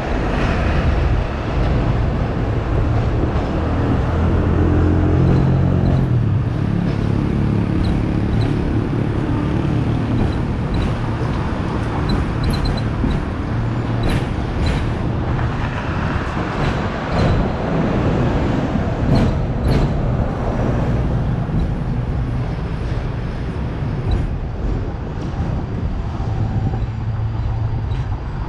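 Steady rumble of a Hong Kong double-decker electric tram under way, heard on board, mixed with street traffic around it. A low drone swells a few seconds in, and a run of sharp clicks and knocks comes around the middle.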